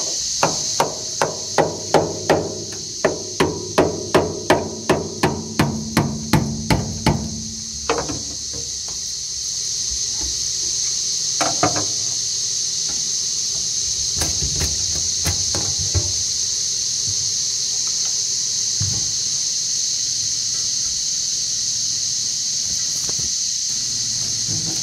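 A hammer beating a flat tool into the gasket seam of a steel hydraulic tank to split its halves apart: a quick run of about twenty metal knocks, two to three a second, for the first eight seconds, then a few scattered knocks. A steady high hiss runs underneath.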